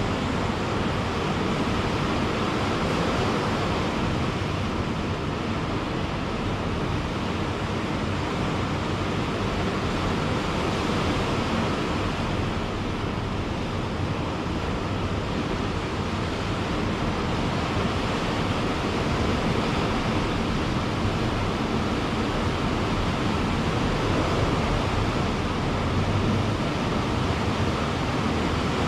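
Ocean surf washing onto a beach: a steady, continuous rush of breaking waves that swells gently and eases back.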